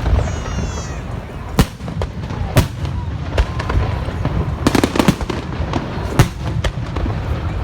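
Fireworks going off in quick, irregular succession: sharp bangs and pops over a steady low rumble, thickest a little past halfway, with a brief high whistle near the start.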